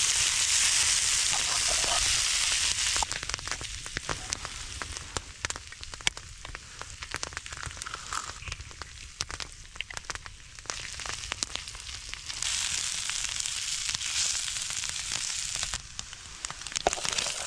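Frozen corned beef hash frying on a hot griddle. It sizzles loudly for the first few seconds, then settles into quieter crackling and popping. A second loud stretch of sizzling comes a little past the middle.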